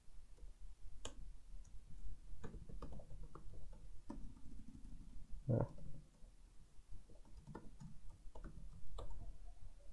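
Computer keyboard keys tapped in short, irregular runs of quiet clicks as a line of code is typed, with a duller knock a little past halfway, over a faint steady low hum.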